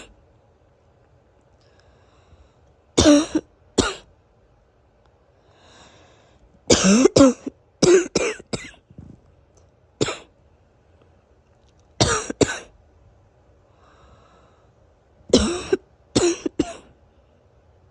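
A person's somewhat wheezy morning cough: short fits of one to three coughs every two to three seconds, with faint breaths drawn between some of them. It is the cough of someone who has been sick and sniffling for a couple of days.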